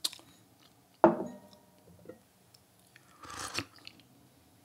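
Gong fu tea tasting at the table: a ceramic cup or lid knocks down sharply about a second in and rings briefly, then comes a noisy slurp of tea a little after three seconds.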